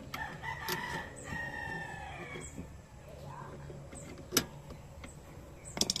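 A rooster crows once, a long call over the first two seconds or so that falls away at the end. Then come sharp metal clicks from a screwdriver prying at the steel clip on a washing machine's drain valve. The loudest click is a little past four seconds in, and a few quicker clicks follow near the end.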